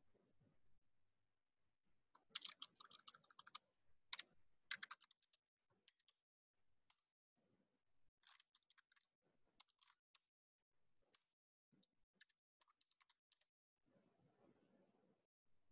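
Typing on a computer keyboard. There is a quick run of keystrokes about two seconds in and another short run a second or so later, then scattered faint key taps with near silence between them.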